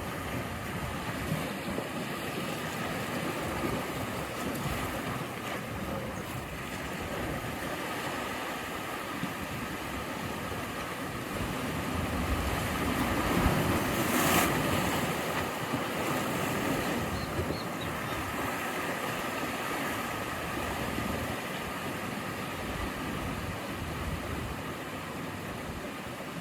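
Ocean surf: waves washing and breaking against the shore in a steady rush, swelling louder about halfway through as a bigger wave breaks.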